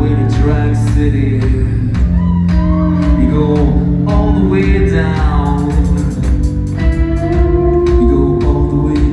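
Live rock band playing: a male lead vocal sung over electric guitars, synth keyboards and a steady drum beat.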